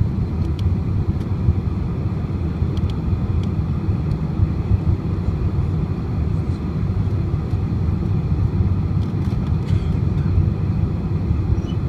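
Airliner cabin noise on final approach: a steady low rumble heard from inside the cabin, with a few faint ticks.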